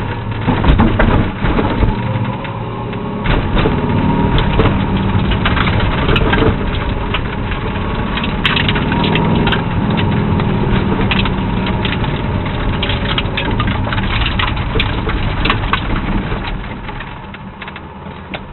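Triumph TR7's V8 engine running at low revs, heard from inside the cabin, as the car rolls slowly over gravel with frequent crunches and pops of stones under the tyres. The sound eases off over the last couple of seconds.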